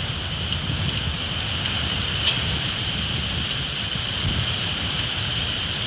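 Strong wind gusts buffeting an outdoor microphone, heard as a continuous churning low rumble over a steady high hiss. A couple of short, high bird chips come about a second in.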